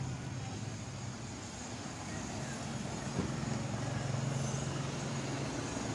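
Street traffic noise with the steady hum of a motor vehicle's engine running nearby, and a short knock about three seconds in.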